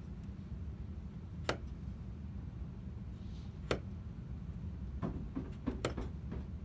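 Small hand blade cutting into a little wooden block: sharp clicks, two spaced well apart, then a quicker run of five or six near the end.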